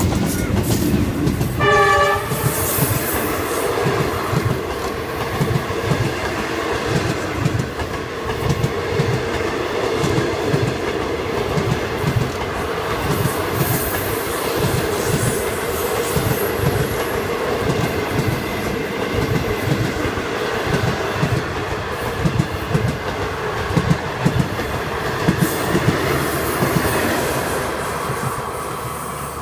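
A DF11 diesel locomotive hauling a long passenger train passes close by: a short horn blast about two seconds in, then the steady rolling noise of the coaches with a regular clickety-clack of wheels over rail joints, fading near the end as the last coach goes by.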